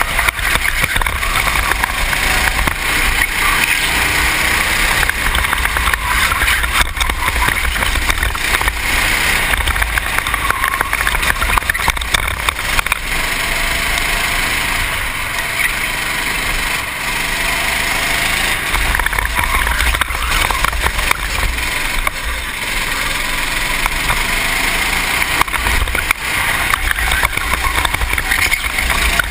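Racing kart engine revving up and down as the kart goes through corners, heard from a helmet-mounted camera under a steady rush of wind noise.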